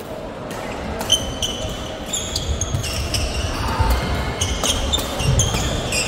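Badminton rally on an indoor court: sharp racket strikes on the shuttlecock and shoe squeaks on the court floor, starting about a second in, over the thud of footwork.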